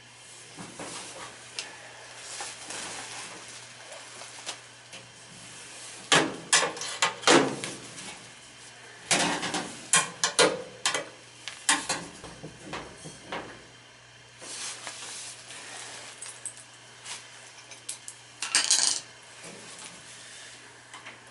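Metal tools and parts being handled, clinking and clattering in several bursts, the loudest about six and ten seconds in and again near the end, over a faint steady hum.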